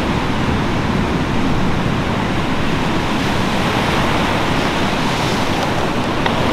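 Ocean surf breaking on a sandy beach: a steady, even rush of waves, with wind rumbling on the microphone.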